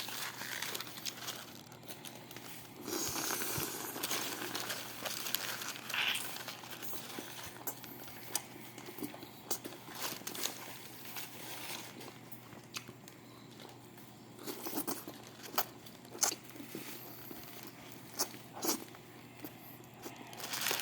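Close-miked mukbang eating: crunchy bites and chewing, heard as a string of scattered clicks and crackles, busiest about three seconds in.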